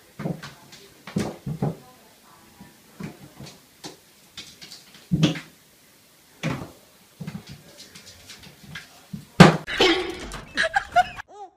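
Scattered knocks and thumps of a kitten playing in an empty bathtub, its paws and body bumping against the tub. The loudest thump comes about nine and a half seconds in, followed by a short flurry of busier noise.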